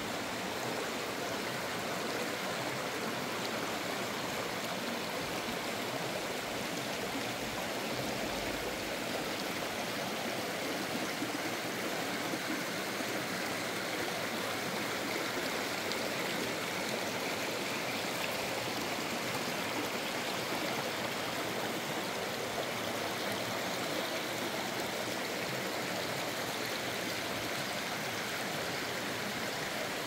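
A rocky stream's water running steadily over and between boulders, an even rushing sound that does not change.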